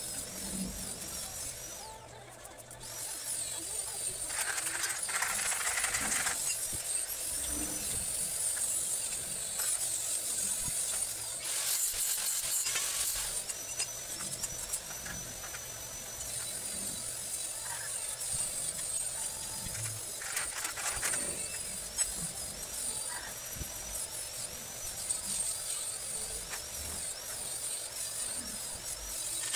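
Stick (arc) welding on a galvanized steel tube frame: several short bursts of arc noise, each a second or two long, over a steady high hiss.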